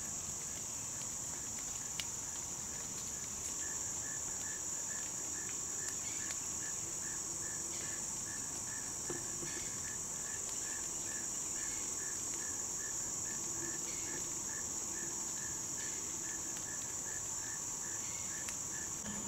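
Insect chorus: a steady high-pitched drone, with another insect pulsing softly in a regular rhythm a few times a second.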